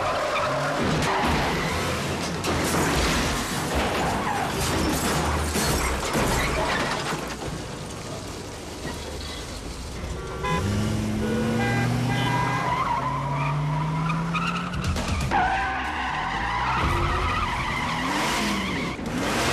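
Film car-chase sound effects: car engines revving and tyres skidding and squealing, with engine pitch climbing twice in the middle, over a film score.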